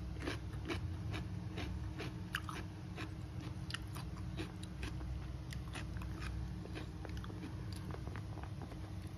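Close-miked eating sounds: chewing of rice and duck with sharp wet mouth clicks, a few a second and irregular, over a steady low hum.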